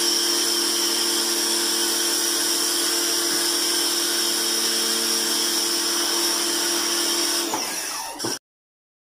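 Kawasaki HPB-302 electric pressure washer running steadily as it sprays foam, a steady whine with a high hiss. Its note sags and falls about seven and a half seconds in, and the sound cuts off abruptly shortly after.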